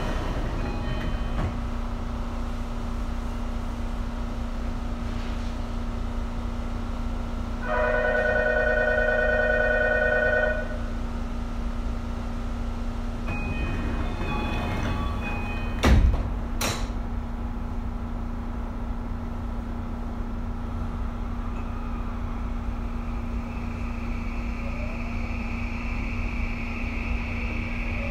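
Tokyu 2020 series commuter train standing at a station with a steady hum of onboard equipment. About 8 seconds in, a steady pitched warning tone sounds for about three seconds. About 16 seconds in the doors shut with a loud double thud, and near the end the motors start a rising whine as the train pulls away.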